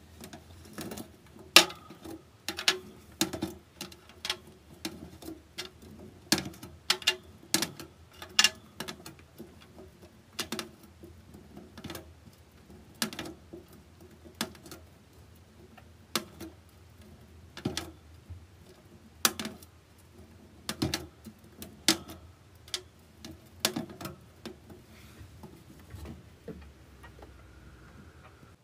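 Sharp, irregular clicks and taps in a clear plastic hamster cage, roughly one or two a second, over a faint steady hum.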